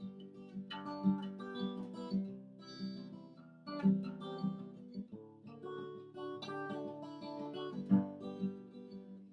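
Acoustic guitar strumming chords in an instrumental break, with no singing.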